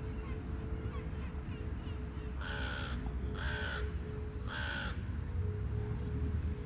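A crow cawing three times, each caw about half a second long and about a second apart, over a steady low rumble.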